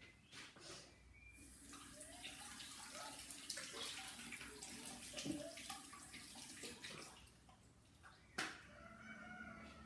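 Tap water running faintly while hands are washed, stopping about eight seconds in; a single sharp knock follows shortly after.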